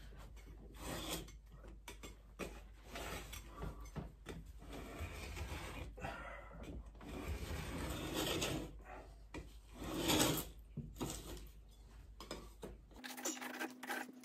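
A wallpaper scraper's corner scratching and scraping at a stubborn strip of old wallpaper in irregular strokes, scoring it so that it will peel off more cleanly.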